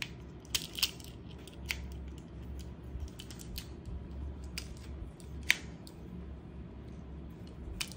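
Scattered light metallic clicks and rattles of an airsoft bipod being handled, its legs unfolded and adjusted. The bipod is light and aluminium-like. The sharpest click comes about five and a half seconds in.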